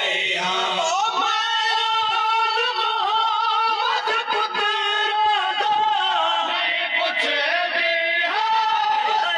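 Male voice singing a noha, a Shia lament, in long held, wavering notes without instruments.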